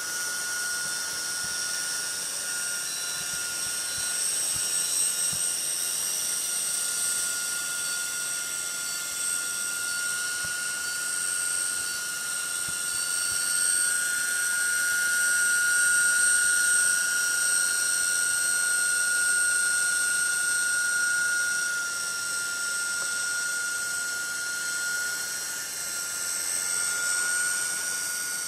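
Small coaxial radio-controlled helicopter hovering with its rotor head at slow speed: a steady high-pitched whine from the motor and rotors, swelling a little louder midway.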